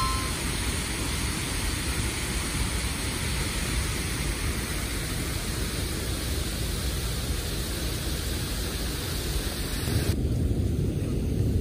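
Water cascading over a stepped concrete weir, a steady rushing hiss. About ten seconds in, the high part of the hiss falls away and the sound turns duller and lower.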